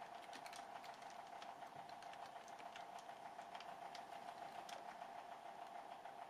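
Typing on a computer keyboard: a quick, irregular run of light key clicks over a steady faint tone.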